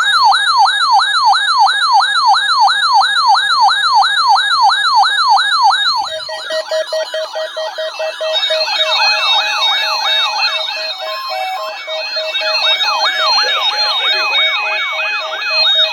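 Weather alert radio receivers sounding their alarms for a required weekly test. A single fast siren wail rises and falls about three times a second, and about six seconds in more receivers join, their wails and repeated beeps overlapping.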